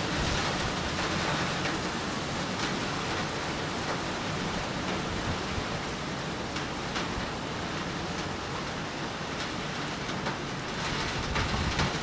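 Gentle rain falling with a steady, even patter.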